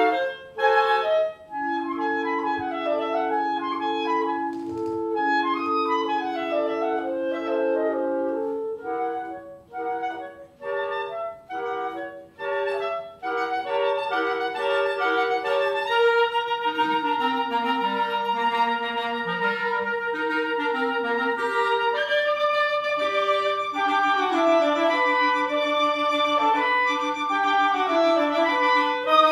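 Clarinet quartet playing classical chamber music: four clarinets together, with passages of short detached notes alternating with long held notes under moving upper lines.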